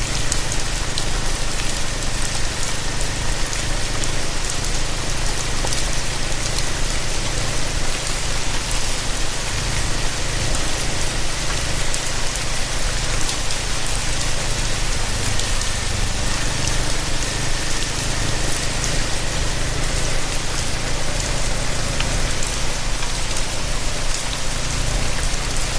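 Steady rain and wet-road noise while riding a Royal Enfield Himalayan motorcycle slowly on a soaked dirt road, with the bike's single-cylinder engine humming low and steady underneath.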